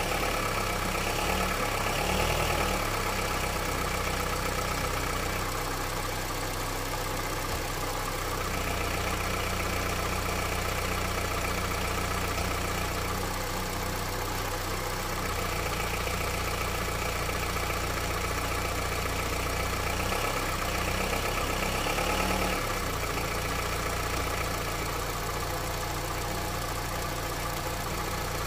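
Honda CR-V's petrol engine idling cold with the automatic in Drive, its sound swelling and easing a few times. It is being run to bring out a knock in the engine, which the owner says appears in Drive at about 200,000 km.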